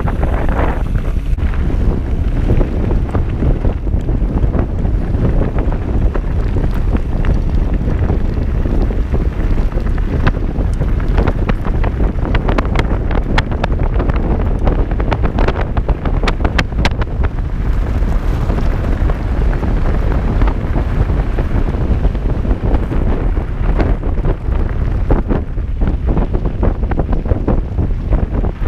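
Wind buffeting a GoPro's microphone as a mountain bike rolls along a dirt trail: a steady low rumble. A run of sharp clicks and rattles comes in the middle.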